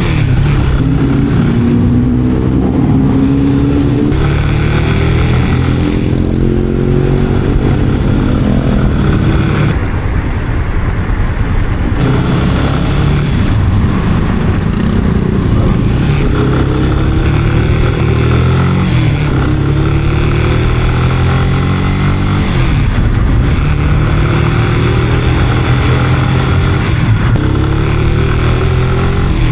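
Italika RC 250 motorcycle engine under way, its pitch climbing and then dropping back again and again as the rider accelerates and shifts through the gears, with wind rushing over the microphone.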